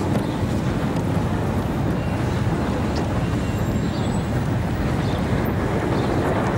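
Steady low rumble of road vehicles running, with no breaks or sharp events.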